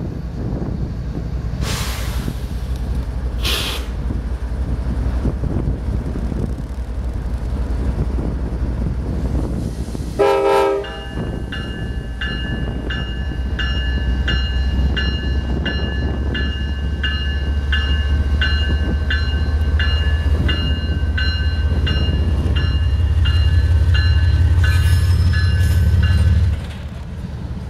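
CSX GE ES44AC diesel locomotive running as it rolls past, with a short horn toot about a third of the way in. A grade-crossing bell then rings with steady repeated strikes while the engine drone grows louder, and the drone drops off abruptly near the end.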